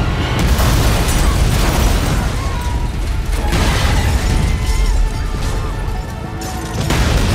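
Shrimp food truck exploding: booming blasts with a deep, continuing rumble, the blasts surging about half a second in, around three and a half seconds and again near the end. Dramatic score music plays over it.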